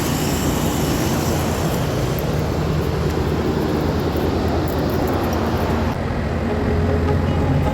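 Steady drone of running rooftop air-conditioning equipment, a low hum under fan noise; about six seconds in the hiss thins and the low hum grows stronger.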